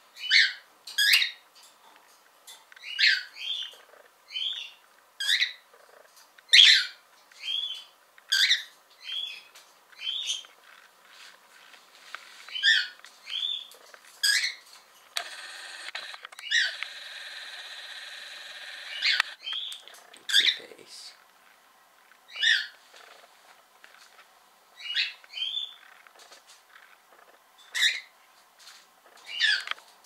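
Cockatiel giving loud, repeated single contact calls, each a sharp downward-sweeping whistle, about one every second or two: a bird calling for a companion that has left it alone. A quieter, steady harsh sound runs for about four seconds midway.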